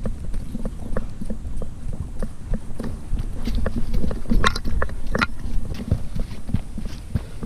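A Border Collie running over the forest floor, heard from a camera carried on the dog: quick, even thumps of its footfalls and the jolting mount over a low rumble, with two sharper clicks about halfway through.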